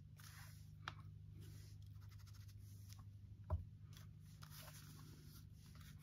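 Paper and craft materials being handled and rustled on a tabletop, with a small click about a second in and a sharper knock about three and a half seconds in, over a low steady hum.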